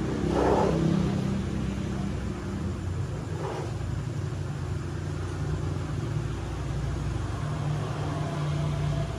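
Motorcycle engine running steadily, a little higher and louder for the first second or two, then settling.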